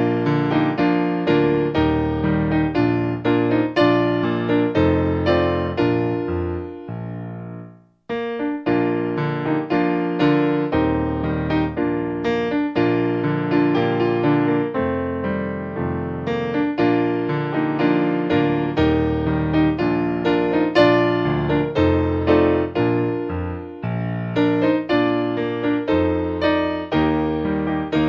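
Background piano music. It fades out about seven seconds in, breaks off for a moment, then starts again.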